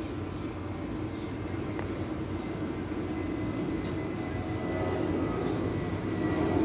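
Airbus A320's IAE V2500 turbofan engines running up for takeoff, a steady rumble with a faint high whine that grows steadily louder.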